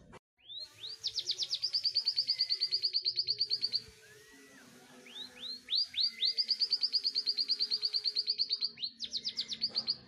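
Canary singing in long, rapid trills of repeated down-slurred high notes, about nine a second. There is a brief pause about four seconds in, then a second long trill and a quicker burst near the end.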